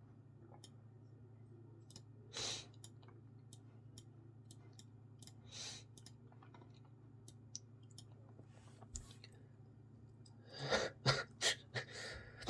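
A man with a congested head cold breathing noisily through his blocked nose: a short sniff-like breath about two and a half seconds in and another about five and a half seconds in, then a quick run of four or five loud, sharp breaths starting about ten and a half seconds in.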